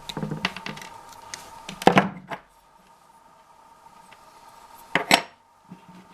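Small hand tools and tiny die-cast car parts clinking and clattering on a work surface: a run of light clicks at the start, then two sharp clatters, about two seconds in and about five seconds in.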